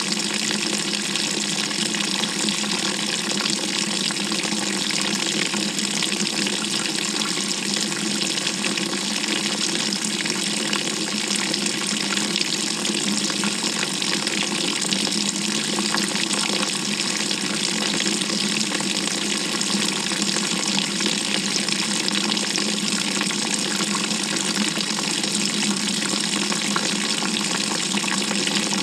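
GE GTW220ACKWW top-loading washer filling with water, a steady rush of water pouring into the tub, heard from inside the drum.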